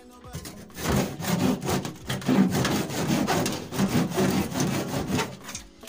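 Hand saw cutting back and forth through the plaster of Paris (POP) ceiling at the edge of a broken-out hole, a rapid rasping of repeated strokes. The sawing starts about a second in and stops just before the end.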